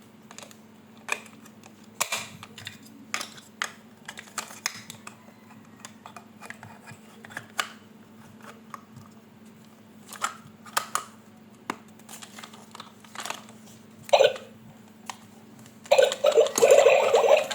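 Irregular clicks and short crackles of hard plastic toys or packaging being handled, over a faint steady hum. Music comes in near the end.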